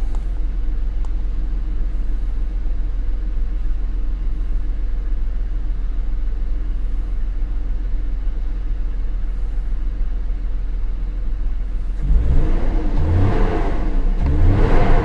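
BMW 528i's 2.8-litre inline-six engine idling steadily, still running rough ('doggy') with its crankshaft position sensor fault code set. Near the end the sound gets louder and more uneven for a few seconds.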